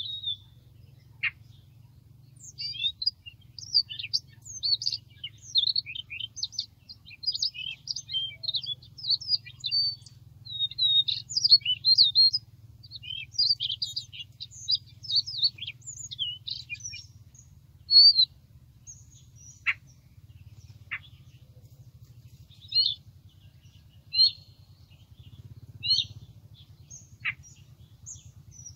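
Siberian rubythroat song: a fast, varied run of chirps and warbled notes for roughly the first half, then scattered single chirps and a few sharp downward calls.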